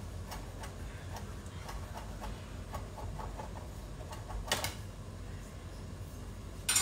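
Chef's knife chopping fresh coriander leaves on a wooden chopping board: an even run of light knife taps against the board, with one louder knock about four and a half seconds in.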